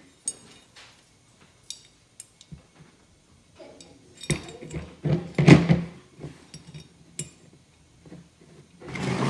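Small metal parts of a Ford flathead fuel pump clicking and clinking in the hands as the rocker arm and its pin are worked into the pump housing, with a cluster of louder clinks about five seconds in.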